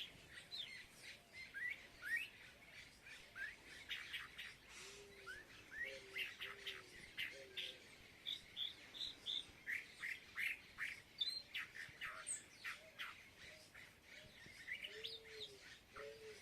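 Several birds chirping and calling at once in quick, overlapping short notes, with a lower-pitched call repeated in short runs of three or four notes, twice.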